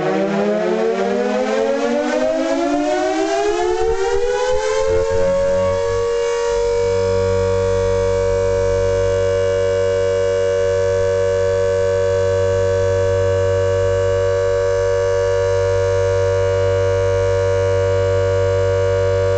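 Air raid siren winding up, its pitch rising for about five seconds, then holding a steady loud tone at full speed.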